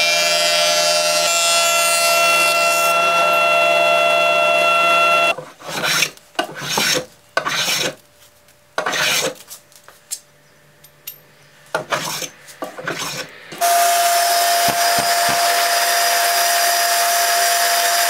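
A Macma thickness planer runs steadily with a whining hum. After about five seconds it gives way to a hand plane taking about eight separate rasping strokes along a board. Near the end a table saw runs steadily with one steady tone.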